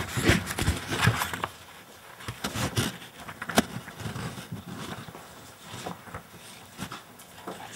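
Paper pages of a thick bound stack being leafed through and turned, rustling in irregular bursts, with one sharp tap about three and a half seconds in.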